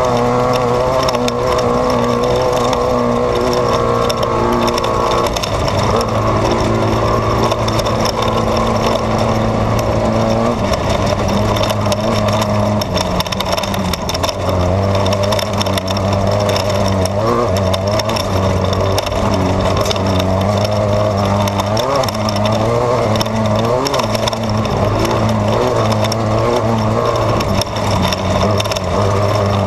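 Off-road race car's engine running hard, heard from inside the car. Its pitch drops in steps about five and eleven seconds in and rises and falls through the second half as the throttle and gears change, over steady road noise and frequent small knocks.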